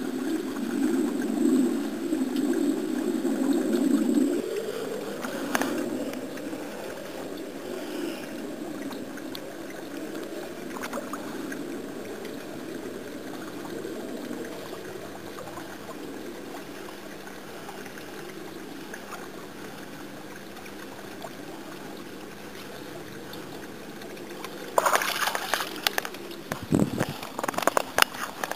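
Water trickling steadily from a small frog-shaped garden fountain into a pond, louder for the first four seconds. Near the end comes a close burst of knocks and rustling.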